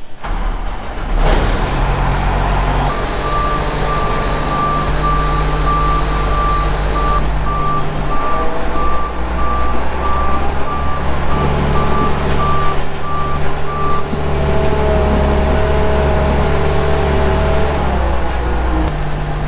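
Case IH 7088 combine's engine running as the machine backs up, its reversing alarm beeping steadily from about three seconds in until about two-thirds of the way through.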